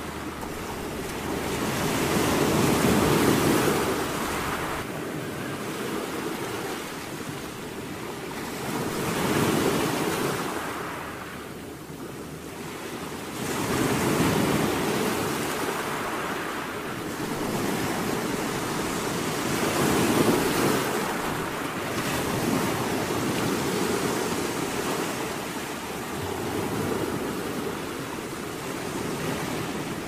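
Waves breaking and washing up on a beach. The surf swells and eases in surges about every five or six seconds.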